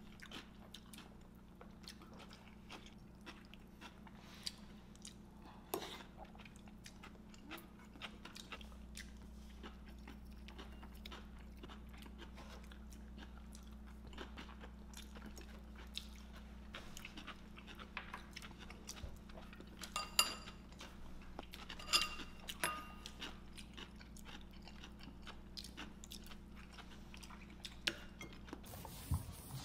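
Quiet eating at a table: chewing of a crunchy vegetable and acorn jelly salad, with faint clicks of wooden chopsticks against ceramic bowls and plates over a steady low room hum. Two sharper ringing clinks of tableware come about two-thirds of the way through.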